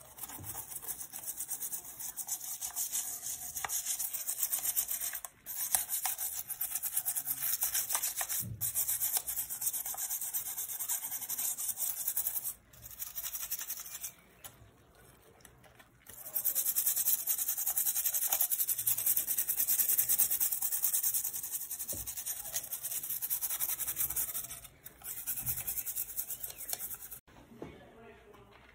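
Plastic toothbrush scrubbing a bare graphics card circuit board in soapy water: a fast, hissy brushing in long stretches, stopping for a few seconds about halfway and again near the end.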